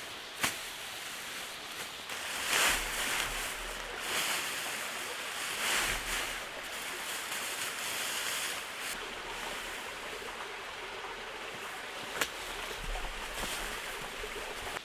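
Steady hiss of rain and wind in the forest, swelling and easing several times, with a couple of sharp clicks, one near the start and one about twelve seconds in.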